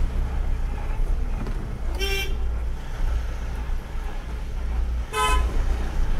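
Vehicle horn sounding two short toots about three seconds apart, over the steady low rumble of a vehicle on the move.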